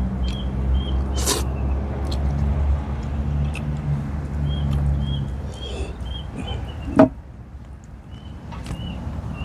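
A steady low engine hum that fades out about halfway through, under short repeated bird chirps and the small clicks and smacks of someone chewing with his mouth full. A single dull thump comes about seven seconds in.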